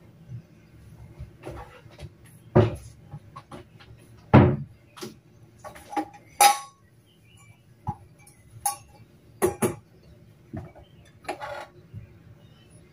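Dishes and kitchen utensils being handled at a dish rack: irregular clinks and knocks, the loudest about two and a half and four and a half seconds in.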